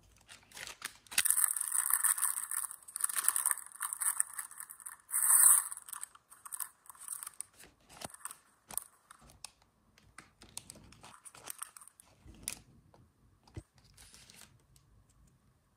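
Crinkly plastic wrappers of a Mini Brands Fashion capsule crackling and tearing as they are unwrapped by hand, densest in the first six seconds and loudest about five seconds in, then only scattered crinkles and small taps.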